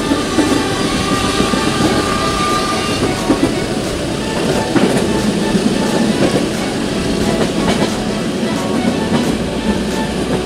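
Passenger train running along the line, heard from inside the carriage: a steady wheel-on-rail running noise with a few sharp clicks and knocks from the wheels.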